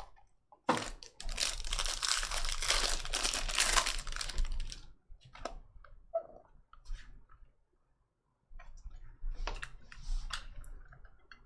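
Foil trading-card packs being torn open and crinkled, a dense crackling for about four seconds, then cards handled and shuffled with scattered light clicks and taps.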